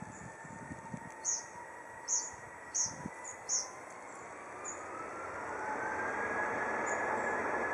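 Twin IAE V2527-A5 turbofan engines of an Airbus A320 running with a steady rushing noise. From about halfway through, a whine rises in pitch and the sound grows louder as thrust increases. Four short, high chirps sound in the first few seconds.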